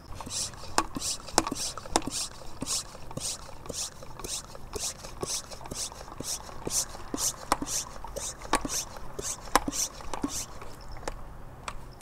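Hand pump of a Koshin 4-litre pressure sprayer worked up and down to build pressure in the tank, a short hiss of air with each stroke about twice a second, with plastic clicks and knocks from the handle.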